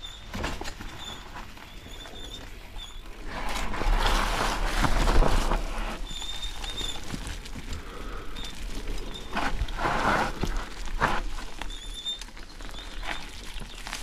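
Mountain bike riding down a dry dirt singletrack: tyres rolling and crunching over dirt and fallen dry leaves, with the bike rattling and knocking over small bumps. It gets louder for a couple of seconds about four seconds in and again briefly near ten seconds.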